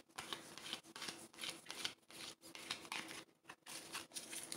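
Faint, irregular rustles and flicks of a stack of soccer trading cards being leafed through by hand, card sliding against card.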